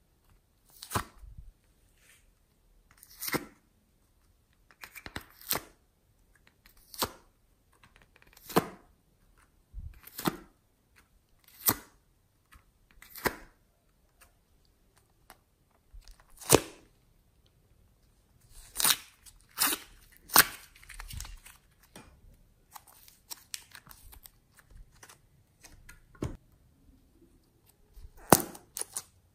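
Soft clay being pulled from a plastic tub a piece at a time, each piece coming away with a short, sharp tearing sound, about one every second and a half. In the second half this gives way to a quicker, irregular run of crackles and crinkles as a plastic piping bag of clay is handled.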